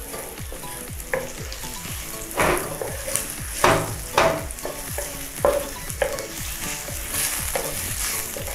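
Sliced button mushrooms and chopped garlic sizzling in hot oil in a nonstick frying pan, stirred with a wooden spatula that scrapes across the pan bottom again and again, the strongest scrapes a little before and after the middle.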